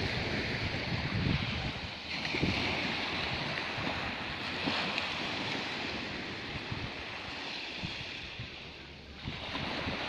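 Sea waves washing in and out, surging a couple of times and easing near the end, with wind buffeting the microphone.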